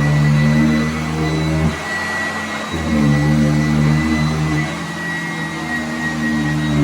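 Sanitaire S675 upright vacuum cleaner running, with a steady high motor whine over a lower hum that fades out about two seconds in, comes back, and dips again near the end.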